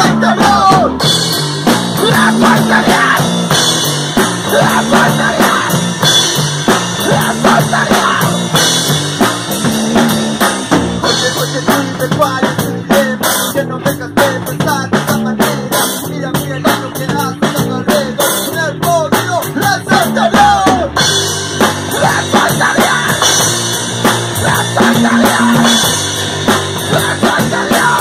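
A rock band playing live: electric guitars and bass over a pounding drum kit, with a vocalist singing into a microphone.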